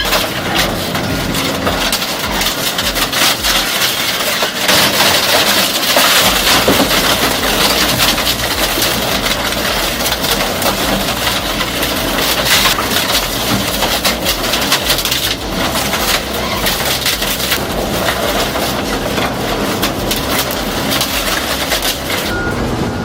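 Industrial shredder tearing up wood: dense, continuous cracking and splintering of timber being crushed between its shafts.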